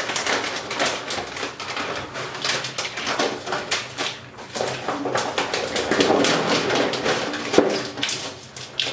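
Vinyl contact paper and its backing sheet crinkling and rustling in irregular crackles as the sheet is pressed and smoothed by hand onto ceramic wall tiles.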